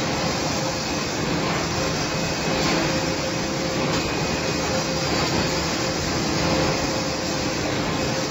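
F-C25 automatic facial-tissue packing and sealing machine running with the tissue machinery around it: a steady mechanical din with a faint steady tone through it.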